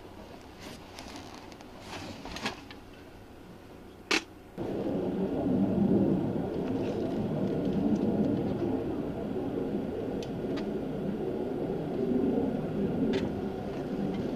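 A single sharp crack about four seconds in, then a steady low rumbling noise that starts suddenly and continues.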